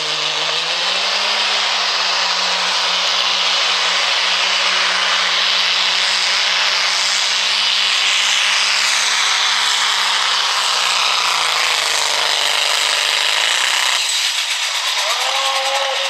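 Dodge Ram diesel pickup's engine at full throttle pulling a sled, held at steady high revs, with a high whine that falls slowly in pitch. The revs dip, pick up briefly, then drop off suddenly about fourteen seconds in as the pull ends.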